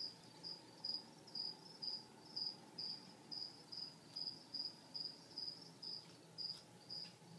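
A cricket chirping in an even rhythm, about two short high chirps a second, over a faint low hum.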